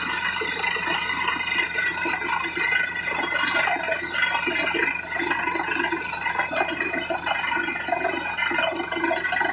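Truck-mounted borewell drilling rig running steadily under load. Its engine and air compressor give a sustained, multi-toned whine while the drill bores, and water and mud slurry gush out of the borehole.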